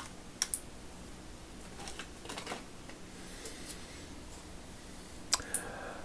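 Light scattered clicks and taps from a pair of metal snap ring pliers being handled in gloved hands: one click just after the start, a few about two seconds in, and a pair near the end.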